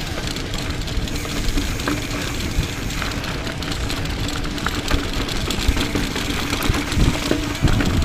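Mountain bike rolling fast down a rocky dirt trail: tyres crunching over gravel and rock and the bike rattling, with irregular sharp knocks as it hits rocks.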